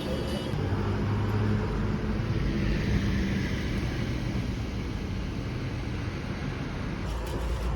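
Steady low rumble of a motor vehicle running, engine and road noise.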